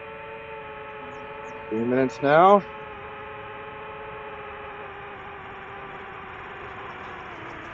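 DJI FPV drone's motors and propellers whining steadily in cruise, as a set of steady tones that drift slightly in pitch. About two seconds in, a man's voice sounds twice briefly, louder than the drone.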